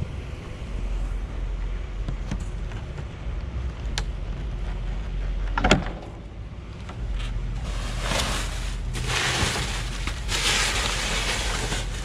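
Rummaging through a dumpster: a few sharp knocks and a louder clank against the bin, then two longer bursts of rustling plastic bags and packing material, over a steady low rumble.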